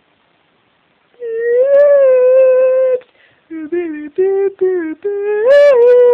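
A young voice singing loudly in a high pitch, starting about a second in: one long held note, then a run of short notes stepping upward, ending on another held note.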